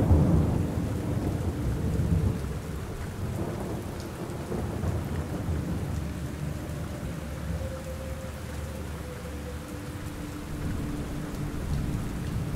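Steady rain with a deep roll of thunder that is loudest at the start and fades over the first couple of seconds.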